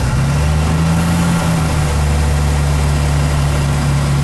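1947 Dodge D-24's flathead straight-six idling steadily, a few seconds after a cold start. Its pitch sits a touch higher for the first second or two, then settles slightly lower.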